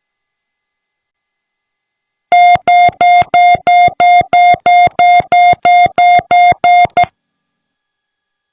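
An electronic alert tone beeping through the aircraft intercom: about fourteen identical, evenly spaced beeps at one steady pitch, about three a second, starting a couple of seconds in and stopping abruptly.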